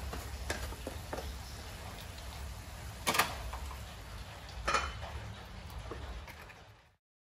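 Stir-frying in a steel wok: wooden chopsticks tap and scrape against the pan in light clicks, with two louder knocks about three and nearly five seconds in, over a steady low hum. The sound stops abruptly shortly before the end.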